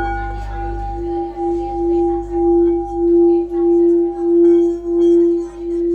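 Singing bowl struck once at the start, then a long ringing tone that swells and fades in a steady pulse about every two-thirds of a second, played as a sound-therapy demonstration.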